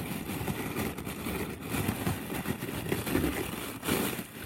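Rustling, scraping and knocking from handling a cardboard box and its packaging as it is opened, with a sharper knock near the end.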